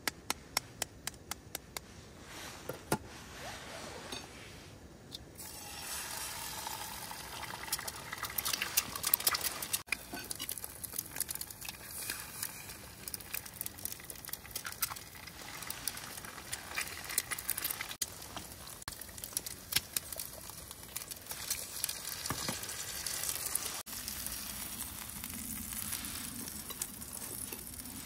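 A run of evenly spaced clicks for about five seconds, then a steady sizzling hiss with scattered crackles.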